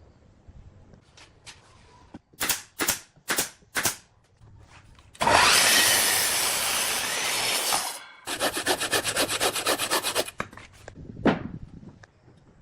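A tool rubbing and rasping on wood: four short strokes, then one loud continuous rasp of about three seconds, then about two seconds of quick strokes, roughly ten a second, and one last stroke.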